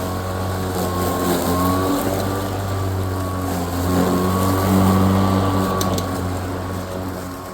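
Greenworks Pro cordless electric lawnmower running as it cuts tall grass: a steady motor-and-blade hum whose pitch dips and rises slightly, swelling a little louder about four to five seconds in.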